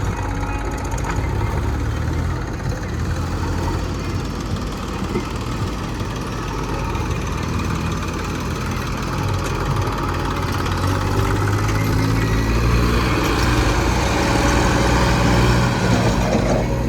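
Heavy diesel engine running steadily, growing louder in the second half.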